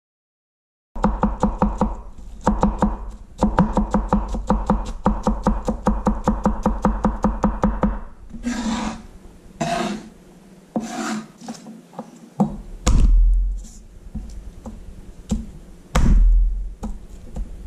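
Chef's knife chopping onion on a wooden cutting board in a fast, even rhythm, after a brief silent gap, stopping about eight seconds in. Then come scattered knife scrapes and taps, and two dull thumps near the end as a garlic clove is crushed under the flat of the blade.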